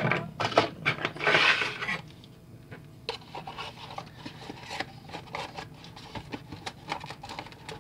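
Hands handling a small cardboard toy box and a plastic ruler: loud rubbing and scraping in the first two seconds, then soft scattered taps and rustles.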